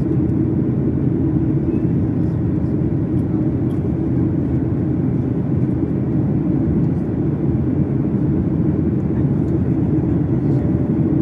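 Steady cabin drone of a Boeing 737 MAX 8 in flight, the CFM LEAP-1B engines and airflow heard from inside the cabin as a loud, even low rumble.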